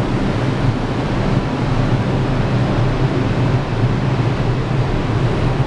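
Subway train running beside the platform: a loud, steady rumble with a low hum underneath.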